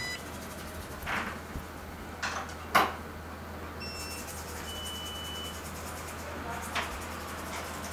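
A few short scrapes and rustles and one sharper knock a little before three seconds in, as a thin steel BGA reballing stencil is handled on a tissue, over a steady low hum. A short, high electronic beep sounds about five seconds in.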